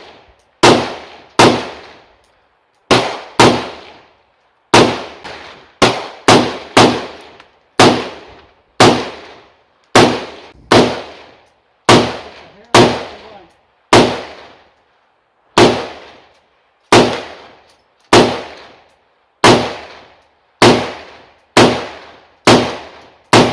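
AR-15 with a 7-inch barrel firing semi-automatic, about thirty sharp, loud shots at an uneven pace, mostly under a second apart, each trailing off in a short echo.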